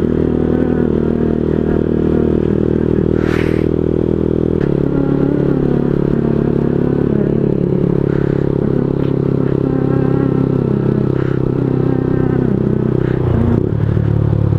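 Honda CBR125R's single-cylinder 125cc four-stroke engine running steadily while the motorcycle rides along. The engine note changes about four and a half seconds in and again shortly before the end.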